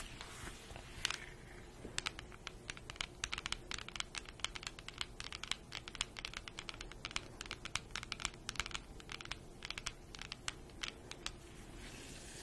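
Long fingernails tapping rapidly on a paperback book's cover: a quick, irregular run of sharp clicks.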